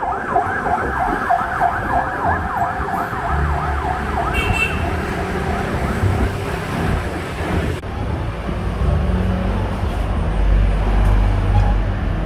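A siren yelping in fast rising-and-falling sweeps for about the first four seconds, then fading under a steady low rumble of street traffic.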